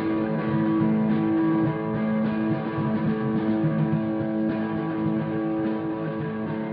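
Rock band playing, guitars to the fore, with held guitar notes ringing over the bass.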